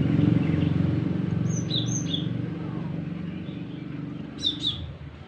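Young glatik giving short high chirps: a pair about a second and a half in, then two sharper calls near the end. A motor vehicle's engine rumbles underneath and fades away.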